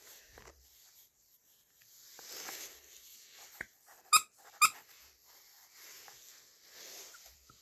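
Squeaker inside a blue plush toy, squeezed by hand: two short, sharp high squeaks about half a second apart, just after the middle, with a fainter squeak shortly before and soft fabric rustling.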